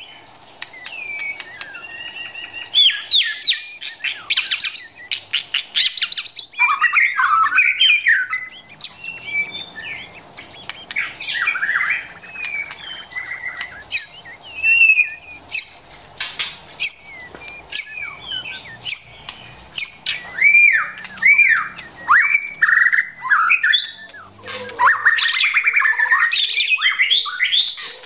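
White-rumped shama calling: short whistled notes that slide up and down, mixed with runs of sharp clicking chatter. The calls are a female shama's, as used to stir a male into song.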